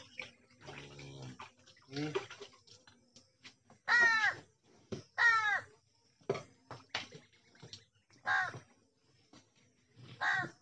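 A crow cawing several times, single calls a second or more apart, the loudest about four and five seconds in.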